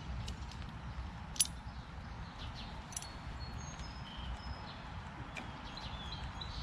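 Locking pliers being set and clamped onto a mower's rubber fuel line to pinch it shut: a sharp metal click about a second and a half in and a fainter one near three seconds. Faint bird chirps sound over a low steady outdoor rumble.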